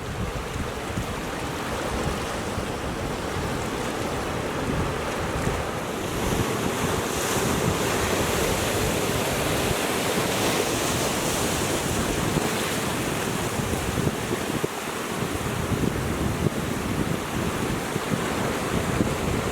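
Ocean surf washing against a rocky shore, a steady rush that swells louder about six seconds in, with wind buffeting the microphone.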